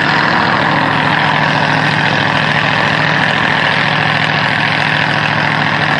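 Boat engine running steadily, a constant drone with a high whine over it.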